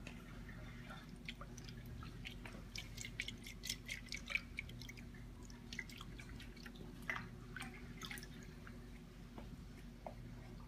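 Water dripping and splashing in quick light ticks, thickest between about two and eight seconds in, as a cup of food is tipped into a reef aquarium, over the steady hum of the tank's pumps.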